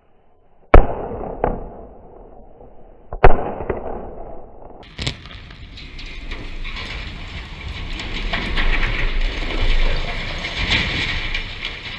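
Explosive charges firing on a steel water tower's legs: a sharp blast about a second in, a second big blast near three seconds and a smaller one near five. Then the tower collapses with a long rumbling crash and crackle of steel and debris, loudest near the end.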